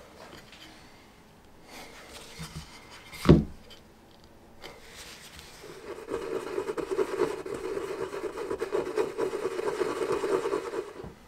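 A single sharp knock about three seconds in, then fast, steady rubbing on wood from about five seconds in, stopping just before the end.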